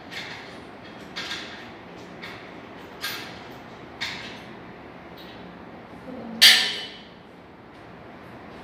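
Sofa parts being handled during assembly: a series of sharp knocks and creaks, roughly one a second at first, with the loudest knock about six and a half seconds in.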